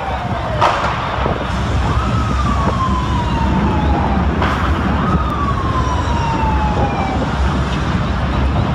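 Fire engine siren sounding twice: each time its pitch jumps up and then slowly falls away over two or three seconds, with a sharp knock just before each rise. A steady low rumble runs underneath.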